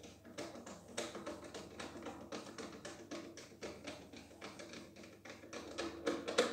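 Light, irregular clicking and tapping, a few clicks a second, of a screwdriver turning a Torx 20 screw into a pressure washer's black plastic housing cover.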